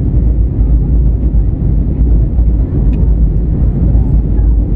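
Steady low rumble of an Airbus A320neo in flight, heard inside the cabin: engine and airflow noise.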